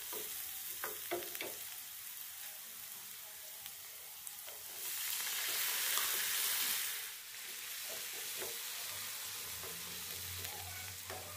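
Onion and spices frying in oil in a pan, a steady sizzle with a few sharp taps of a utensil against the pan early on. About five seconds in, the sizzle swells louder for some two seconds, then settles back.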